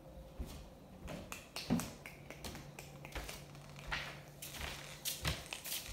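Scattered light clicks and taps of footsteps and grit on a dusty plywood subfloor, with one stronger knock near the start. A faint steady low hum comes in for a few seconds midway.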